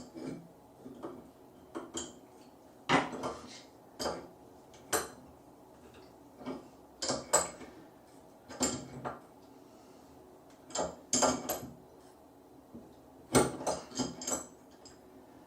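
A metal wrench clinking against chrome shower fittings while a connection is tightened: sharp, irregular metallic clinks, some in quick clusters of two or three.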